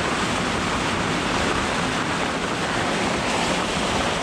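Heavy rain pouring down on an anchored sailboat in strong wind of over 20 knots: a steady, even noise.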